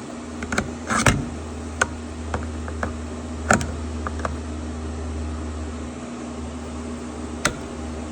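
Scattered sharp metal clicks and taps as a flathead screwdriver and needle-nose pliers work at the retaining clip on the dowel of a motorcycle recoil starter, over a steady low hum.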